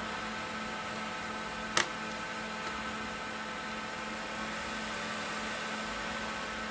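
Steady electrical hum and hiss, with a single sharp click about two seconds in.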